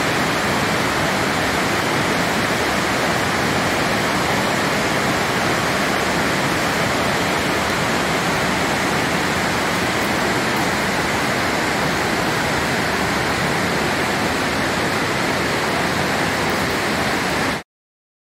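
Water rushing steadily through a limestone cave, an even, unbroken rush of flowing and falling water. It cuts off suddenly near the end.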